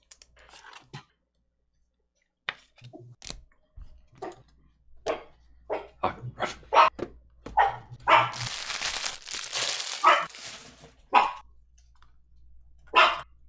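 Pet dog barking repeatedly, beginning a couple of seconds in, with single barks about a second apart. It is alarm barking, set off by the garage door being opened. A rushing noise runs for a couple of seconds in the middle.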